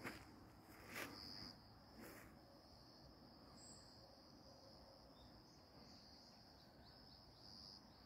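Faint, steady, high-pitched insect chirring that runs on unbroken, with three footsteps in the first two seconds or so.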